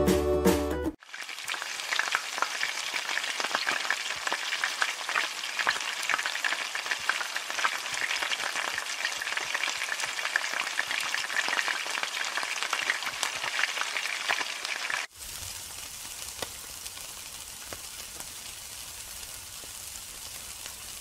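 Hot oil sizzling and crackling densely as food deep-fries in a wok. About two-thirds of the way through it cuts suddenly to a quieter, steadier sizzle of meat skewers cooking on a charcoal grill.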